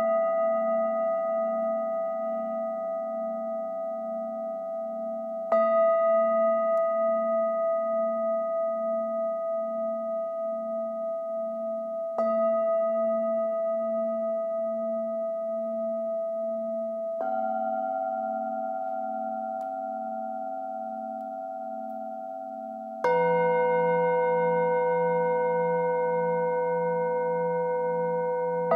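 Singing bowls struck one after another with a mallet, four strikes about five to six seconds apart, each ringing on with a slow wavering beat as it fades. The last strike, about three-quarters of the way through, brings in a lower tone.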